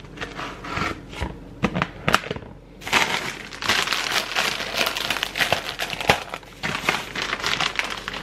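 A shopping bag being handled and crinkled while items are taken out: a few light knocks and rustles at first, then continuous dense crinkling from about three seconds in.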